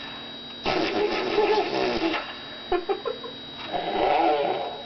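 Baby blowing raspberries: a wet buzzing of the lips that sounds like a fart, in two spells of about a second and a half each, with a few short sputters between them.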